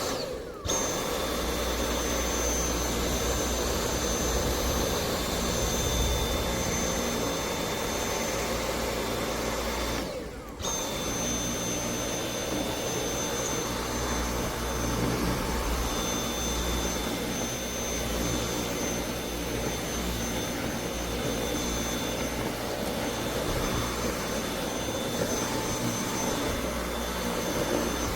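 Dyson V8 Animal cordless stick vacuum running, a steady motor whine with a thin high tone. It cuts out for a moment about ten seconds in, then runs again.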